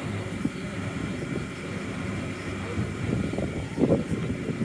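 Vehicle road and engine noise heard while driving, a steady low rumble, with a brief louder burst just before the end.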